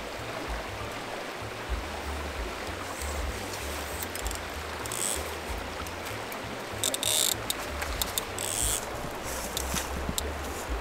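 Stream water running steadily, with a low rumble underneath and a few short hissy rustles, the loudest about seven and eight and a half seconds in.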